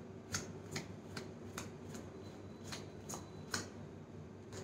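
A deck of playing cards being overhand-shuffled by hand. Small packets drop from one hand to the other, giving about eight soft, quick slaps, roughly two a second, with a short pause near the middle.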